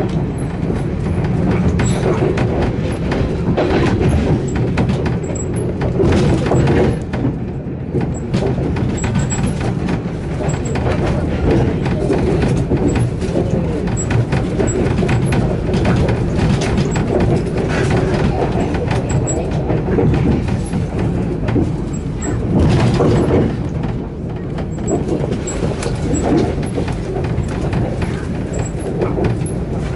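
Passenger train running at speed, heard from inside the carriage: a steady rumble of wheels on the track with scattered knocks.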